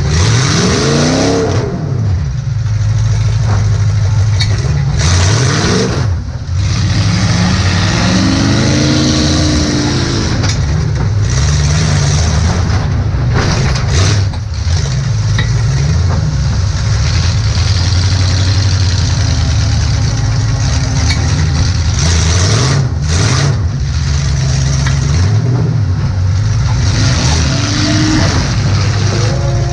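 Demolition derby car's engine heard from inside the cabin, loud and revving up and down again and again.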